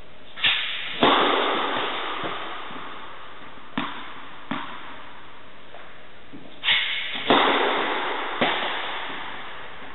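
Tennis serves in an indoor tennis hall: two hard racket-on-ball hits, about a second in and again near seven seconds, each ringing out in a long echo off the hall, with lighter thumps of the ball bouncing on the court in between. A steady hiss lies under it all.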